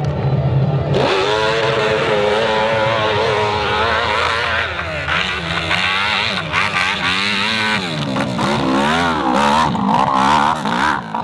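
Motorcycle engine running hard, starting about a second in, its pitch rising and falling again and again as the throttle is opened and closed.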